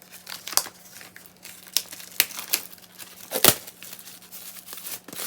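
Plastic and paper album packaging crinkling and tearing as a K-pop album is unwrapped and opened, in irregular crackles with one louder rip a little past the middle.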